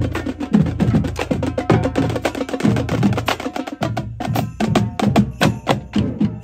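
Marching band drumline playing a fast cadence of snare and bass drums with sharp wood-like clicking strokes. The low drums thin out about four seconds in, leaving the quick sharp strokes.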